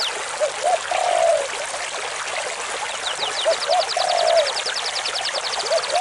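Stream water rushing over rocks, a steady hiss, with birds calling over it. A lower short call comes around the first second and again near four seconds, and a fast run of high falling notes starts about halfway through.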